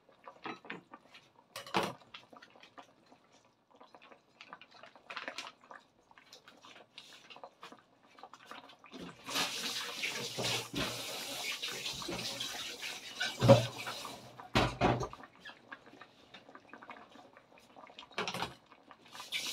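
Beef rendang broth simmering in a metal wok, its bubbles popping and crackling. A louder steady hiss comes in about nine seconds in and lasts about five seconds, with two knocks near its end.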